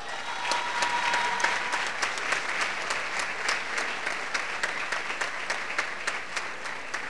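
Audience applauding in a large hall. The clapping swells within the first second and eases off slowly.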